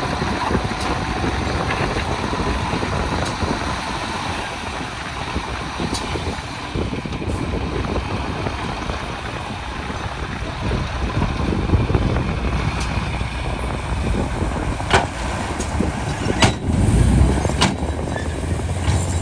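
Heavy diesel construction machinery, a bulldozer and dump trucks, running steadily, with a few sharp clanks in the last few seconds.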